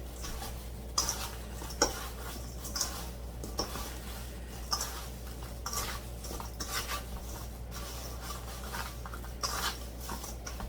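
A utensil stirring sliced apples with sugar, spices and lemon juice in a bowl to mix apple pie filling, with irregular clinks and scrapes against the bowl.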